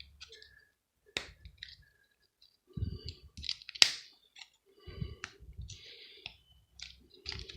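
Metal cutters snipping and crunching at the plastic casing of a plug adaptor, with irregular clicks and handling knocks; the sharpest snap comes about four seconds in.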